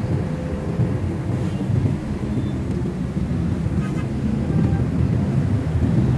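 Steady low rumble of a car and the surrounding road traffic, heard from inside the car's cabin.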